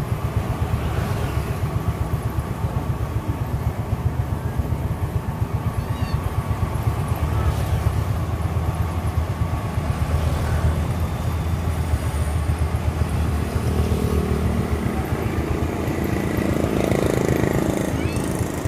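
Maxxi Bimo crawler rice combine harvester's diesel engine running steadily at close range, with a rapid low pulsing and a thin steady whine above it. The sound swells a little about three-quarters of the way in.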